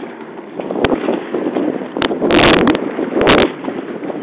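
Wind buffeting the microphone on board a small motorboat ferry under way, over the steady rush of the boat running through choppy water, with two loud blasts of wind about two and three seconds in.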